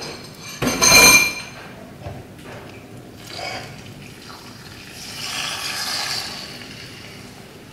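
Beaten egg sizzling in hot oil in a wok, the sizzle swelling about five seconds in as the wok is tilted and swirled to spread the egg thin. A sharp, ringing clink about a second in is the loudest sound.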